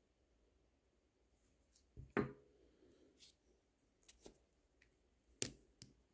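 Small, sharp clicks and taps of watchmaker's hand tools against a watch movement during assembly: a loud pair about two seconds in, a few lighter ticks, and another loud click near the end.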